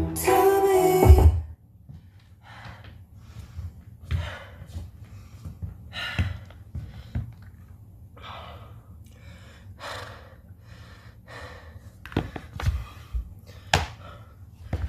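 A man breathing hard and panting after dancing, a drawn breath every second or two. Music cuts off about a second and a half in, and a few sharp knocks come near the end.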